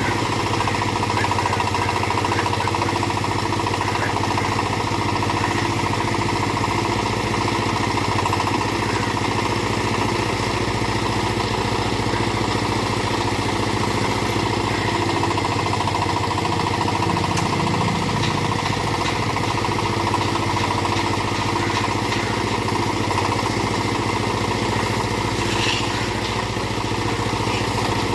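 Small backhoe's engine running steadily at an even speed.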